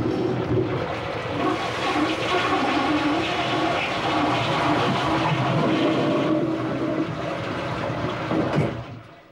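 Toilet flushing: a long, loud rush of water that fades away near the end.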